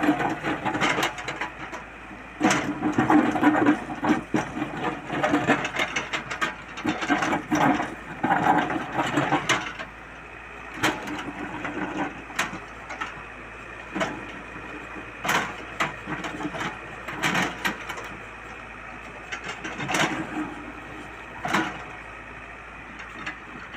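Excavator at work: its engine runs under irregular clanks and knocks, dense for the first ten seconds or so, then spaced a second or two apart.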